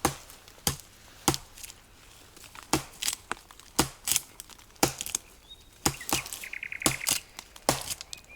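Chopping dry deadwood: about a dozen sharp blade blows into the wood, with a pause of about a second and a half near the start.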